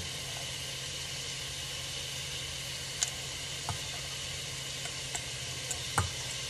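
Steady sizzle of ground beef frying in an oiled pan. Two sharp knocks, about three seconds in and near the end, come as a stainless-steel colander tips drained corn and black beans into a glass container.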